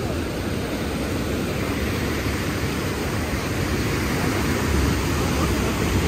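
Steady rush of a close waterfall, with wind rumbling on the microphone.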